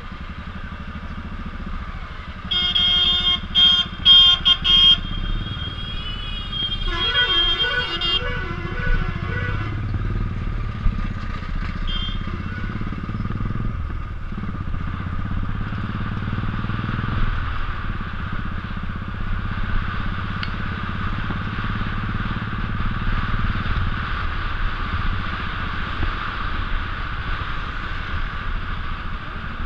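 Royal Enfield 500cc single-cylinder motorcycle engine running at low speed, with vehicle horns blaring over it: a run of short, loud honks about two to five seconds in, then a second, lower horn sounding in quick repeated pulses for a couple of seconds.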